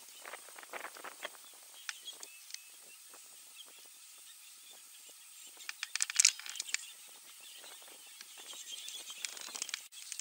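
Irregular crackling and rustling of dry brush as elephants move through and feed on shrubs. The loudest flurry of snaps comes about six seconds in, and the sound breaks off sharply just before the end.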